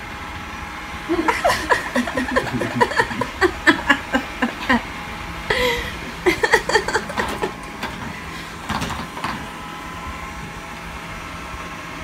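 Robot vacuum cleaner running with a steady hum, with indistinct voices talking over it for most of the first several seconds.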